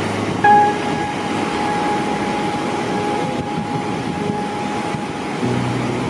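Slow background music with long held notes over a steady rushing noise.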